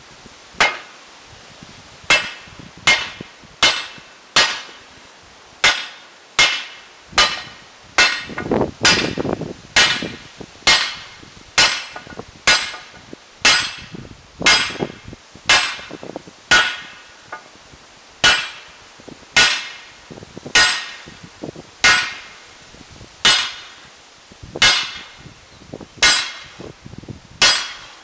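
Hammer blows forging a red-hot greatsword blade on a round steel block anvil, each a sharp ringing clang of steel on hot steel. The strikes come in a steady rhythm of about one a second, with a brief pause about two thirds of the way through.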